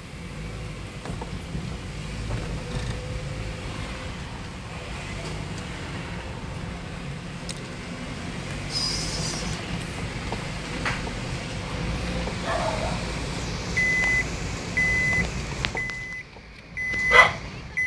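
Car cabin noise while driving slowly: a steady low rumble of engine and road. Near the end a short high electronic beep repeats about once a second, five times, with a sharp knock among the last beeps.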